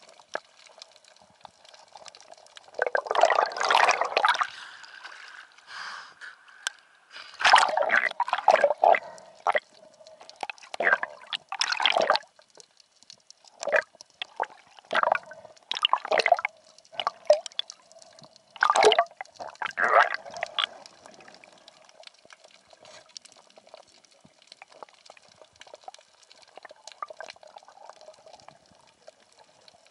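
Water splashing and bubbling in irregular bursts, about a dozen of them, the longest about three seconds in. They thin out after about twenty seconds, leaving a faint steady hum.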